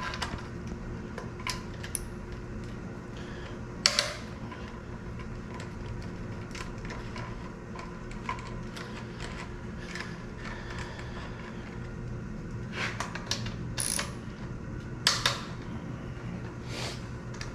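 Hand tools and loose bolts clinking against metal while an Audi V8 engine is being dismantled: scattered sharp metallic clicks and knocks, the loudest about four seconds in and again near the end, over a steady low hum.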